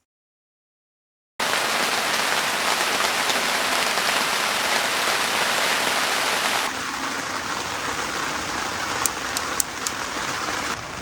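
Heavy rain falling steadily. It comes in suddenly after about a second and a half of silence, eases slightly about two-thirds of the way through, and a few sharp drip ticks sound near the end.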